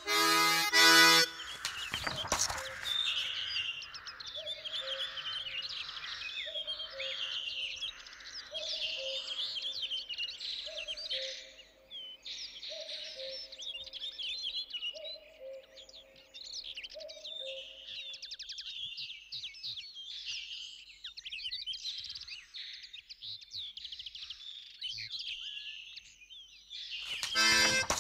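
Birdsong ambience: many birds chirping and twittering, with a low two-note call, higher then lower, repeating about every two seconds through the first half. A snatch of music ends just after the start, and music comes back near the end.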